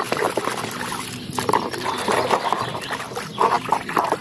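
Muddy water sloshing and splashing irregularly in a plastic tub as a hand scrubs a plastic toy gun with a brush under the water.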